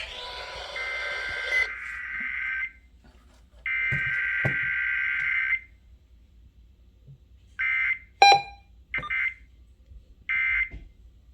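Emergency Alert System SAME digital data bursts received over a radio: two long buzzy bursts about a second apart, then three short bursts about a second and a half apart, the pattern of the end-of-message signal. A sharp click with a brief ringing comes just after the first short burst.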